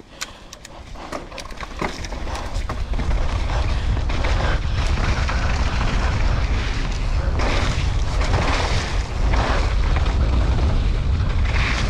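Wind buffeting a helmet-mounted action camera's microphone, with tyre and trail noise from a mountain bike riding down a wet downhill track. A few sharp clicks come in the first two seconds, and the noise builds over about four seconds as the bike gathers speed, then stays loud.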